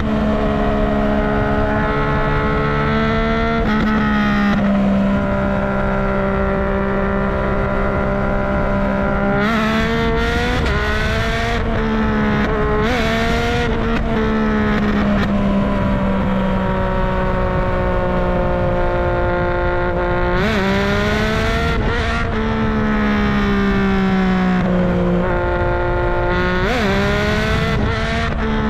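Yamaha MT-09's three-cylinder engine and exhaust under way, running at a fairly steady speed. The revs sag slowly over long stretches and are broken several times by quick jumps in pitch.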